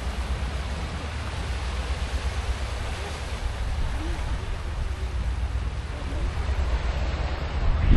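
Wind buffeting the microphone over the steady wash of the sea, with a stronger gust near the end.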